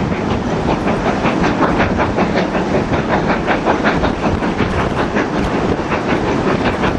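Steam locomotive hauling a passenger train, working hard, with a quick, even rhythm of exhaust beats.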